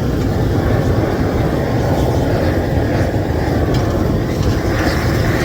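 Loud, steady rumbling noise without a clear pitch.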